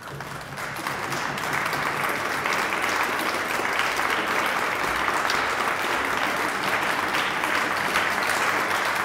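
Audience applauding: a dense crowd of clapping hands that swells over the first second or two and then holds steady.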